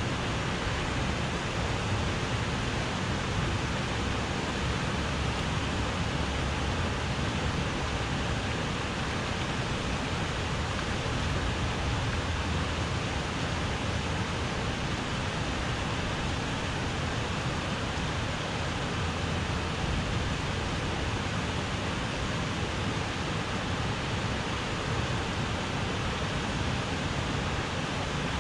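Steady, even rushing of flowing river water, unchanging throughout.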